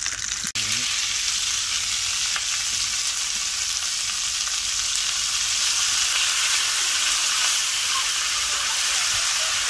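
Chopped onions and carrots frying in bacon fat in a cast-iron skillet: a steady sizzle that drops out for an instant about half a second in. Near the end they are stirred with a wooden spoon.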